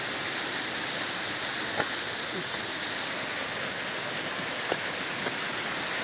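Steady rush of falling water from a small waterfall, with a few brief clicks over it.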